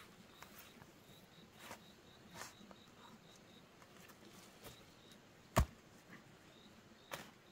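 A hand hoe chopping and scraping into loose, dry soil: about five separate strikes spread unevenly, the loudest about five and a half seconds in. A faint high chirp repeats a few times a second through the first few seconds.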